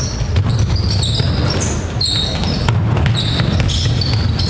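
Basketball being played on an indoor court: sneakers squeaking repeatedly in short high chirps, with scattered thuds of the ball and feet over the steady low rumble of a large hall.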